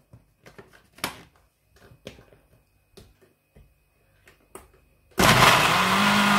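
Plastic lid of an electric grinder jar handled and pressed into place with a few light clicks and knocks. About five seconds in, the grinder motor starts suddenly and runs loudly and steadily, grinding chunks of fresh coconut, coriander and green chilli with a little water into chutney.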